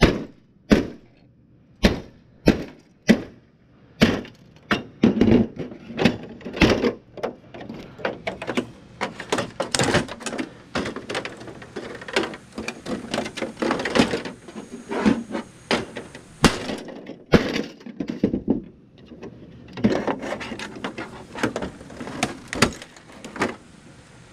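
Hatchet blows on a flat-screen TV's plastic back cover, sharp strikes about one a second at first, then a long run of plastic cracking and snapping as the cover is broken open and pulled away.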